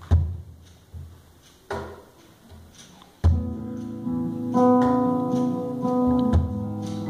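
Acoustic guitar played live, starting properly about three seconds in with ringing plucked chords and held notes. Before that there are only a few scattered soft hits.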